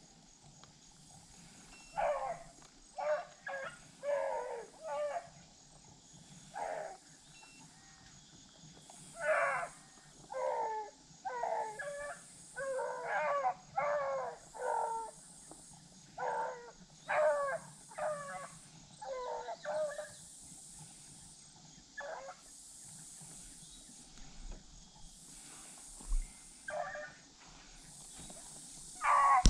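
A pack of beagles baying on a rabbit's track: short, ringing barks and bawls in irregular bursts, busiest in the middle and thinning out toward the end.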